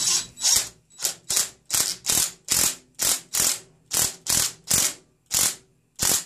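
Hand ratchet with a socket on an extension, turning an exhaust manifold nut down its stud on a cylinder head. Each back-swing gives a quick burst of pawl clicks, about two to three strokes a second, with a short pause near the end.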